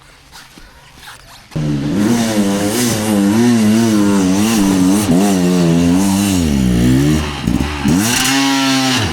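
Off-road dirt bike engine revving hard. It comes in suddenly loud after a quiet second and a half, its pitch surging up and down over and over as the throttle is worked. It drops off briefly, then rises and falls once more near the end.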